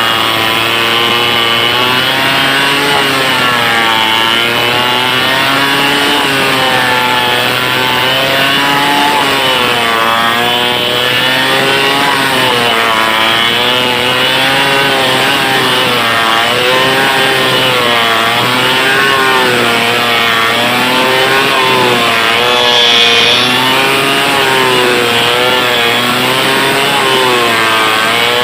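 Stihl 070 two-stroke chainsaw running at full throttle while cutting through a big log, its engine pitch rising and falling steadily as the chain bites and loads up.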